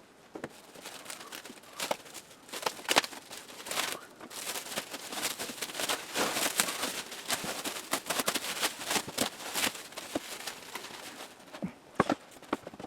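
Rustling and crinkling of packing material with irregular knocks and clunks as a speaker is worked loose and lifted out of its wooden shipping crate.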